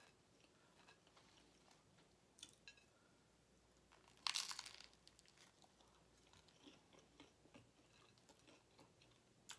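A single short bite into the bread of a cheesesteak sub roll about four seconds in, followed by faint chewing. Otherwise it is very quiet.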